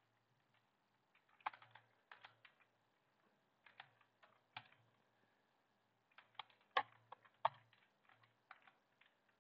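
Computer keyboard being typed on: three short runs of key clicks with pauses between them, the loudest keystrokes in the last run.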